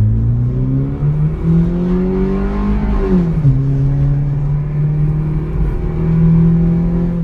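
Nissan Versa's four-cylinder engine, fitted with an aftermarket DC Sports intake, heard from inside the cabin while accelerating. The revs climb, fall away at a shift about three seconds in, then hold fairly steady.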